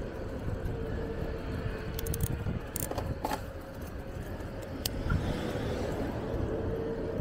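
Street-riding noise from a bicycle: a steady low rumble of tyres on the road and wind on the microphone, with a faint steady hum. A few sharp clicks and rattles come in a cluster around the middle, and one more a little later.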